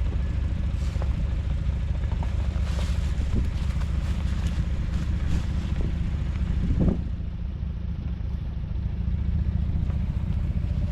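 A vehicle engine running with a steady low rumble, with scattered light clicks and clatter over it. About seven seconds in there is a brief louder low sound, and the rumble drops a little after it.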